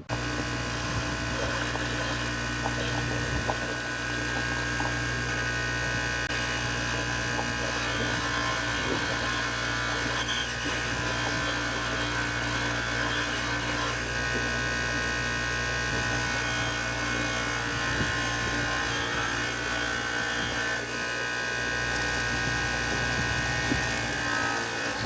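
Power grinder running steadily, cutting down the head of a replacement wheel stud so it will clear the brake caliper.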